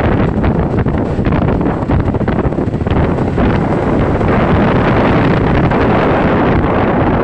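Wind buffeting the microphone of a moving motor scooter, a dense rushing noise with the ride's road and engine noise mixed in. It grows a little brighter about four seconds in.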